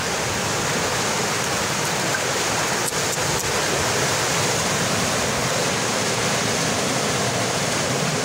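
Steady rushing noise of flowing river water.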